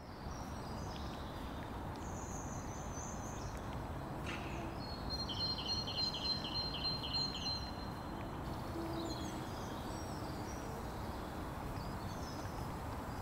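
Small birds singing and chirping over a steady low outdoor background rumble, with a longer run of quickly repeated notes in the middle.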